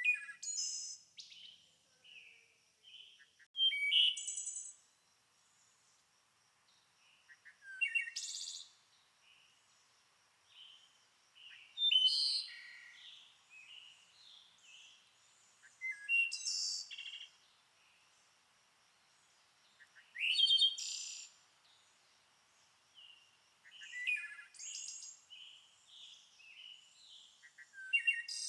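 Birds chirping and calling in short bursts of song that recur about every four seconds, over a faint steady high tone.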